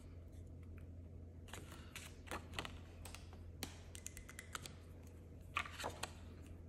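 Quiet handling sounds of hands working with polymer banknotes, a clear binder envelope pocket and a paper tracker card: scattered light clicks, taps and rustles, with a few sharper clicks about two and a half, three and a half and six seconds in.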